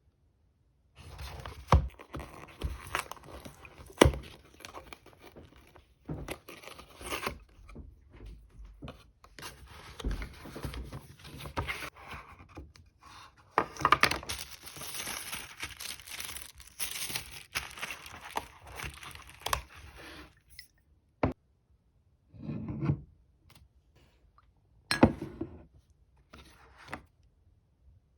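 Packaging being handled and torn open: irregular tearing, crinkling and scraping with a few sharp knocks, dying down to a few separate bumps after about 20 seconds.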